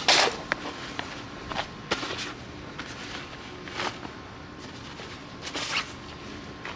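A sharp clatter of a Onewheel GT board on concrete right at the start. It is followed by scattered soft taps and rustles as a nylon drawstring bag is handled, with a longer rustle about five and a half seconds in as the fender is pulled out of it.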